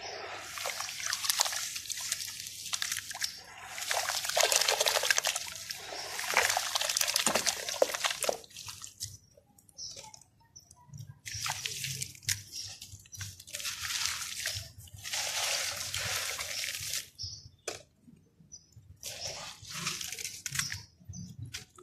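Hands squeezing and stirring wet red dirt in a basin of water, splashing, dripping and trickling in bursts of a few seconds with short pauses between. Near the end a dried dirt pot is crumbled into the water.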